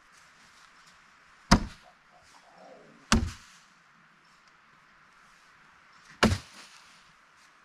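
Cornhole bean bags landing on the boards: three sharp thuds, about a second and a half, three seconds and six seconds in.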